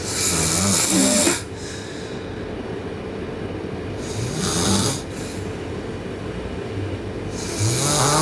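A sleeping person snoring: three snores, each about a second long, spaced roughly three and a half seconds apart with each breath.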